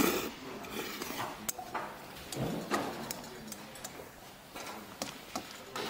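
Noodles being slurped and eaten, with chopsticks clicking and scraping against a stainless steel bowl in short sharp taps.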